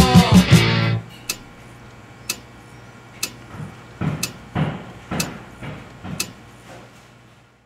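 Rock music cuts off about a second in, leaving a wall clock ticking once a second over a low steady hum, with softer knocks between the ticks; it all fades out near the end.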